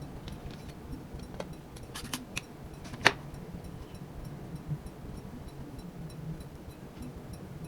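Light kitchen clatter: scattered small clicks and knocks, with one sharp click about three seconds in, over a steady low hum and a faint, fast, even ticking.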